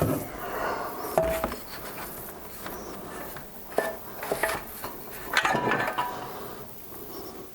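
Light metal handling noise as a piston ring is fitted into a Briggs & Stratton small engine's cylinder bore, with several short ringing clinks of metal parts.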